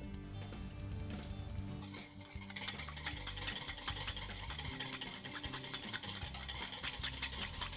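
A wire whisk beating an olive oil and lemon dressing in a ceramic bowl: a fast, steady run of clicks and scrapes against the bowl, busiest from about two and a half seconds in, over background music.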